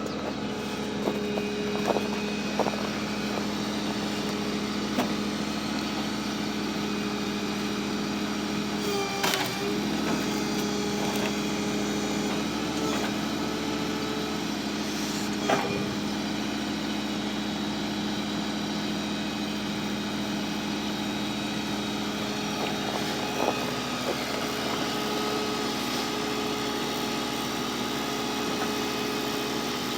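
Chevy Cavalier engine running steadily, with a few scattered clicks and thumps. The engine has a known rod knock.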